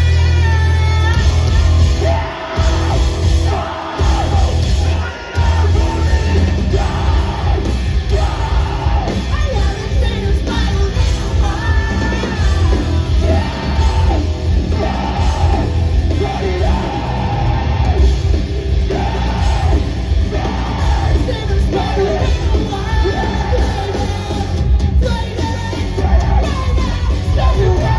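Live post-hardcore rock band playing loud, with heavy bass and drums under yelled and sung vocals. The band's low end cuts out briefly three times within the first six seconds.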